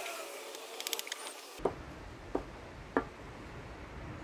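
Kitchen knife slicing oyster mushrooms on a wooden cutting board: quick light clicks of the blade at first, then three heavier knocks of the knife on the board over a low rumble.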